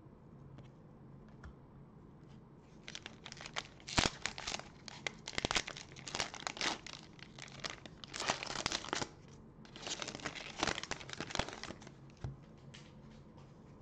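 Plastic cello-pack wrapper of trading cards being torn open and crinkled by hand, in bursts of crackling that start about three seconds in and die down near the end.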